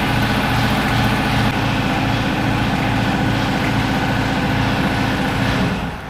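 A motorcycle engine idling steadily with an even low pulse, dropping away shortly before the end.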